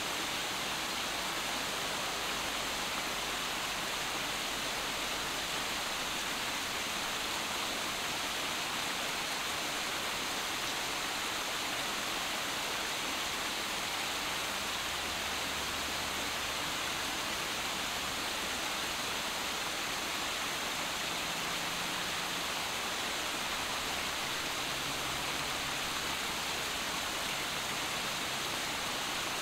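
Small waterfall splashing and rushing steadily over boulders, an even, unbroken hiss of falling water.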